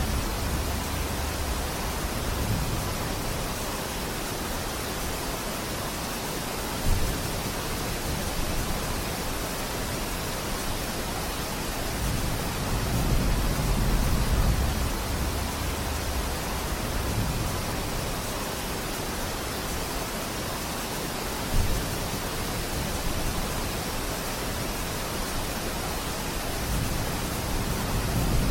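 Steady rain falling as an even hiss, with a low rumble that swells and fades every several seconds and two brief thumps, about a quarter and three quarters of the way through.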